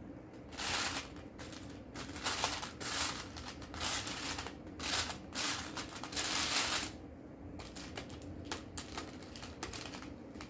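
Plastic Lego pieces rattling and clicking as they are handled, in a series of short clattering bursts over the first seven seconds, then lighter scattered clicks.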